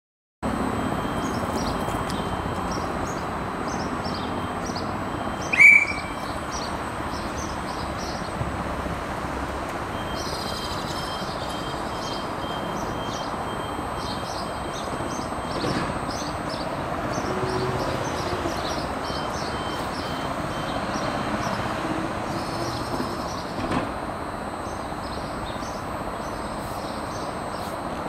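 Steady running hum of an Auckland AM-class electric multiple unit standing at a platform, with birds chirping throughout. One short, loud high-pitched chirp about five and a half seconds in.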